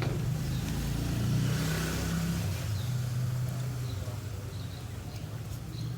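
A vehicle engine running steadily, swelling louder about a second in and easing back after about two and a half seconds.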